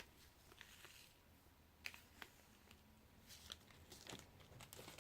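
Near silence with a few faint clicks and light rustles, like small plastic packets and containers of glitter being handled.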